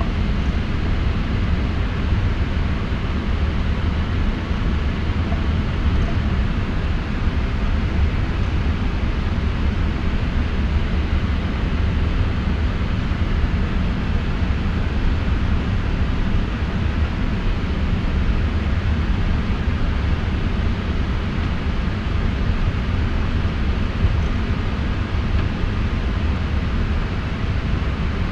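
Steady cockpit noise of a Boeing 777-200F taxiing: a deep, even rumble with a hiss of airflow over it.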